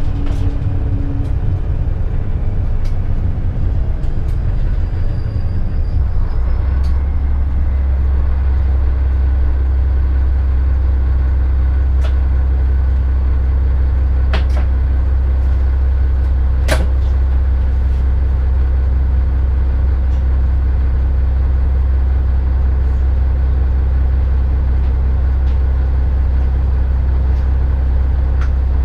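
Underfloor diesel engine of a class 650 (Regio-Shuttle RS1) railcar as the train comes to a stop in a station, settling into a steady low idle from about six seconds in. A few short, sharp clicks in the middle.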